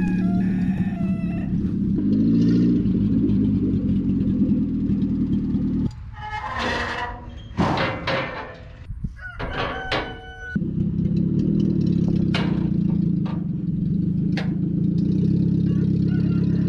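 The 1979 Chevrolet LUV 4x4's four-cylinder engine running steadily at low speed as the brakeless truck creeps along in four-low. About six seconds in, the engine sound drops away for roughly four seconds, with a few knocks, then comes back.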